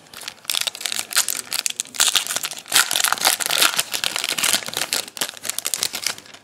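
Foil trading-card pack wrapper being torn open and crinkled by hand: a dense, crackly rustle of many quick clicks that fades out near the end.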